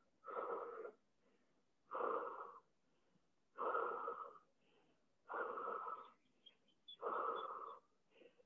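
A man breathing hard and audibly while holding the yoga plow pose, legs over his head and chin pressed to his chest: five noisy breaths, about one every second and a half.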